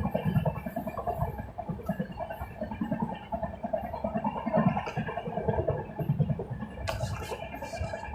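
Rumble and uneven rattling of a train running on the track.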